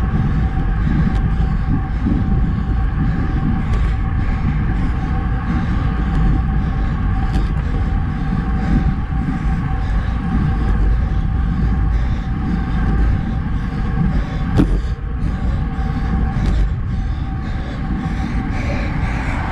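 Wind rushing over a handlebar-mounted action camera's microphone, with tyre rumble from a road bike riding on Roval Rapide CLX64 deep-section carbon wheels, a faint steady hum under it. A single sharp knock about two thirds of the way through.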